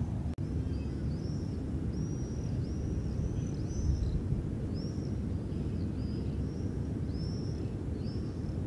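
A bird calling over and over in short, high chirps, each rising then falling, about one or two a second, over a steady low rumble.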